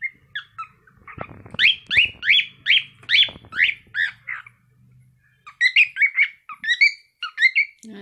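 A young cockatiel singing: a fast run of about eight whistled notes that each glide in pitch, a short pause about five seconds in, then a second run of quicker, choppier chirps.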